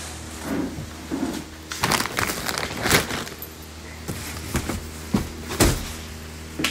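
Rustling and crinkling of heavy embroidered velvet and net fabric as it is handled and turned, with a few sharp clicks, over a steady low hum.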